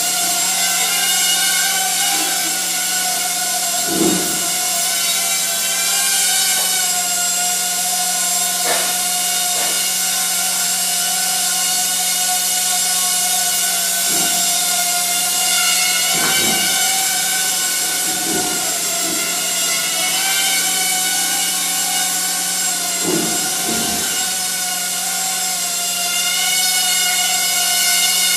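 Hubsan H107D X4 mini quadcopter's four coreless motors and propellers whining in flight, the pitch wavering up and down. A few short thumps come through along the way.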